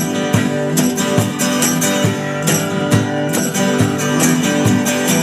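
Country band playing an instrumental passage: strummed guitar over a steady beat.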